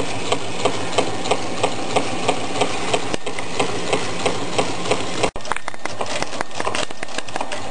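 Candle-powered Meccano Stirling engine running, its crank and gears clicking about three times a second over a steady mechanical whirr. After a brief break about five seconds in, the clicking comes quicker and less even.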